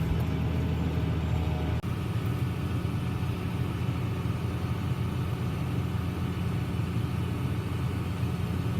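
New Holland T8 tractor's six-cylinder diesel engine running steadily, a low drone while the tractor waits with its grain cart.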